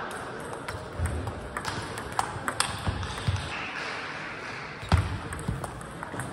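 Table tennis rally: the ball clicks sharply off the bats and table at irregular intervals, with more clicks from other tables in the hall. Several low thuds run underneath, the loudest about five seconds in.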